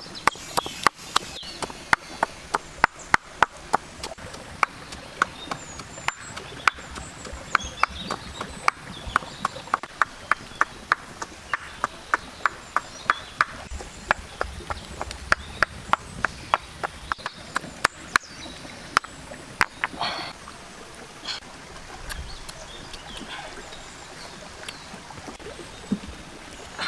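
Stone pestle pounding chilies and garlic in a stone mortar: a long run of sharp, even knocks, about three a second, with birds calling in the background.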